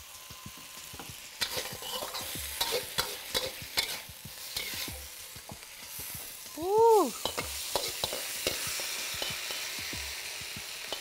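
Beef and pepper stir-fry sizzling in a hot wok, with a metal wok spatula scraping and clinking against the wok in quick strokes during the first half.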